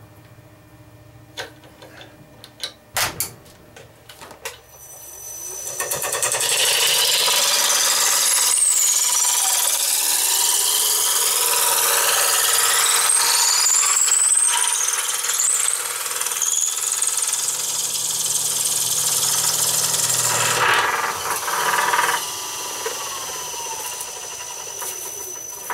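A few clicks and knocks of a lathe chuck being tightened with its chuck key. About five seconds in, a loud steady shaving and grinding starts as a spinning wood blank is fed through a Veritas 3/8-inch dowel maker, its blade cutting the blank down to a round dowel. It eases to a quieter steady running sound a few seconds before the end.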